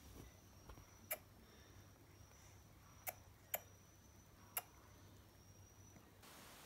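Near silence broken by four short clicks, two of them close together in the middle, from a baby sucking and swallowing at a feeding bottle's nipple.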